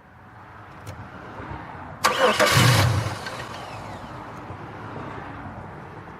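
A 2002 Chevy Malibu's engine being cranked on the starter, with a sudden loud burst about two seconds in that lasts about a second before the sound settles and fades. The car is a no-start: the fuel pump runs, but the owner finds the injectors are not opening.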